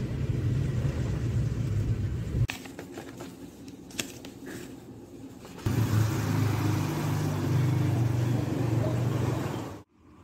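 Low rumble of a car cabin on the move. About two and a half seconds in it gives way to a quieter stretch with a few sharp clicks. A second loud low rumble follows and cuts off suddenly near the end.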